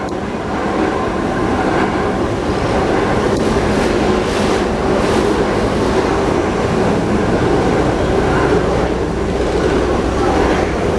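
Steam traction engine running as it travels past, a loud, steady mechanical noise with no break.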